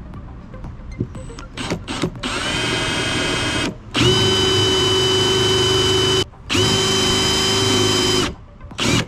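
Power drill motor run in bursts: a few short trigger blips, then three runs of one to two seconds each. The first run winds up quickly to a steady speed. A short blip comes near the end.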